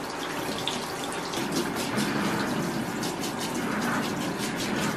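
Handheld shower head running steadily, water splashing into a plastic dog bathtub and then onto a small dachshund's back.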